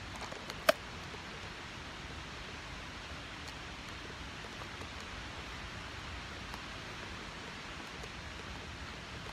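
Steady, even background hiss of outdoor woodland ambience, with one short sharp click just under a second in.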